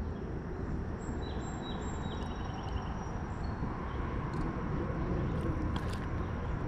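Steady low outdoor rumble, with faint high bird notes chirped briefly between about one and three and a half seconds in, and a few light clicks near the end.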